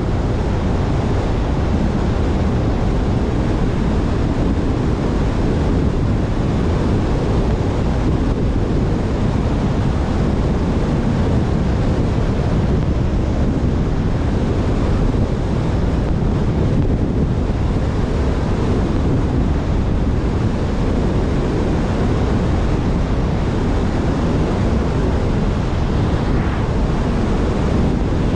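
Steady rush of wind and road noise from a car driving at speed along an open road, even and unbroken throughout.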